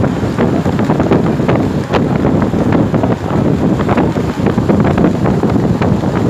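Heavy wind buffeting on the microphone of a phone carried on a moving motorcycle, with motorcycle engines running under it.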